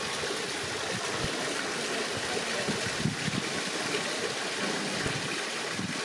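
Water from a stone wall fountain's spout splashing steadily, with a few soft low knocks.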